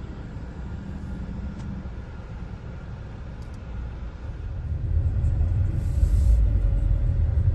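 Low rumble of road and engine noise inside a moving car's cabin. It grows clearly louder about five seconds in, as the car drives over a broken, rough road surface.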